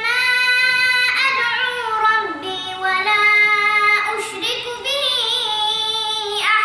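A young boy reciting the Quran in a melodic, chanted style, with long held notes in a high voice and ornamented turns in pitch between them.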